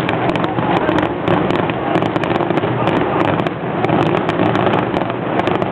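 Fireworks going off in a rapid, irregular run of sharp pops and crackles, with people talking over them.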